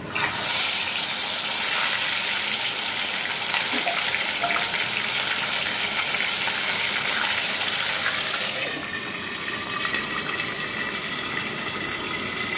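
Whole parshe (gold-spot mullet) fish going into hot mustard oil in a karai, setting off a loud sizzle and spatter of deep-frying that starts suddenly and eases somewhat after about nine seconds.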